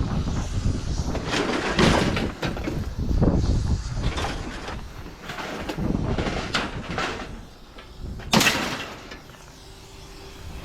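Irregular clattering and knocking of objects being handled and moved, with one sharp bang a little past eight seconds in, then quieter with a faint steady hum.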